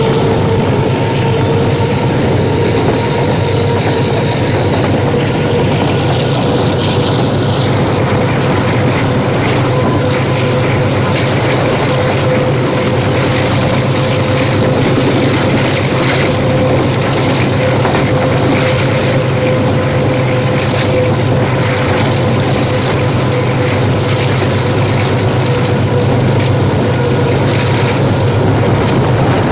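Diesel locomotive engine working hard under load as a banker pushing a passenger train up a steep mountain gradient. It is a steady, loud drone with a deep hum and a higher whine held at one pitch.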